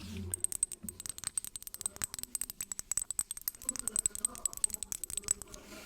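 Rapid, irregular fingernail tapping and clicking on a hard perfume bottle, many quick taps with a thin high ring over them.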